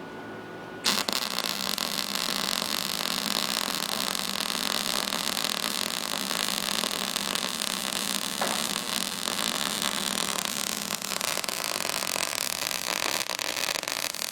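MIG welding arc striking about a second in, then crackling and hissing steadily as the wire feeds into the plate. The bead goes wrong, which the coach blames on the gun being held too far from the plate.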